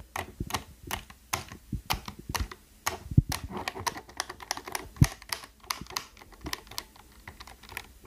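Bare red-stem mechanical keyboard switches, keycaps off, being pressed and flicked rapidly by a finger: a fast, irregular clatter of plastic clicks, with two louder knocks about three and five seconds in. The switches are soaked in rubbing alcohol and are being worked to dislodge the dirt that makes them unresponsive.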